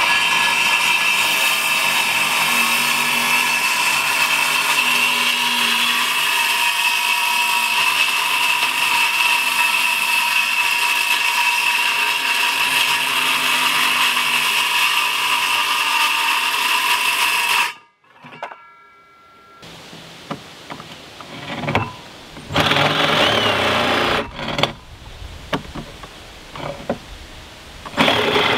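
Ridgid Gen5X 18V cordless circular saw running steadily as it rips through 3/4-inch plywood for about eighteen seconds, then stopping abruptly. After a pause, a cordless reciprocating saw runs in two short bursts against the plywood.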